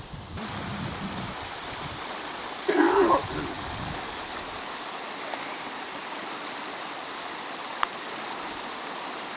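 Mountain stream rushing over rocks: a steady hiss of running water that comes in just after the start. A short loud voice cuts in about three seconds in, and there is a single sharp click near the end.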